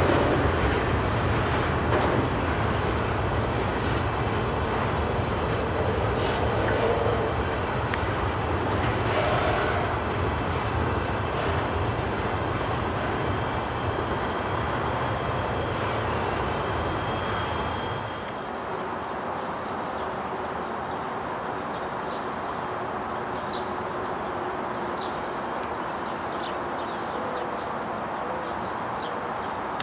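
Freight train of high-sided open-top cars rolling past: steady rumble of wheels on rail, with a thin, high wheel squeal from about a third of the way in. A little over halfway through the rumble drops to a quieter, steady sound of the train running on down the track.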